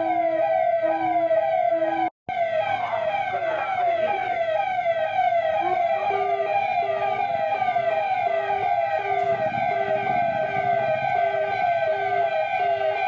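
Electronic siren sounding: a loud falling sweep repeated about twice a second, over a lower tone that pulses on and off. The sound cuts out for an instant about two seconds in. It is the signal for people to halt and stand where they are.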